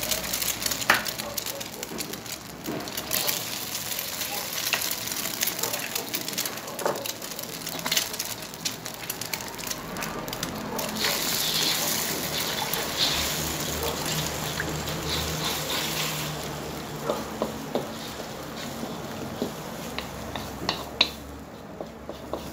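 Food sizzling as it fries in a hot pan, with frequent clicks and scrapes of a utensil stirring it.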